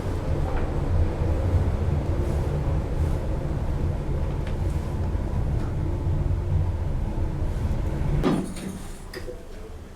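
Schindler lift car travelling down the shaft, a steady low rumble heard from inside the car. About eight seconds in there is a brief sharp sound and the rumble falls away as the car comes to a stop.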